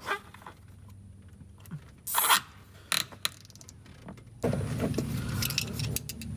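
Black nylon zip ties being pulled tight around a hose: a short ratcheting zip about two seconds in, then a few sharp clicks. From about four and a half seconds a steady low hum sets in, with quick small handling clicks over it.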